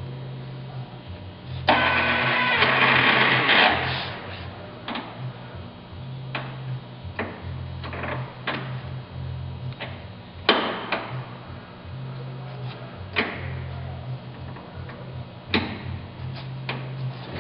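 Metal clicks and knocks as parts on the headstock of an Emco Maximat Super 11 bench lathe are handled, with a longer, louder clattering rattle about two seconds in. Background music plays underneath.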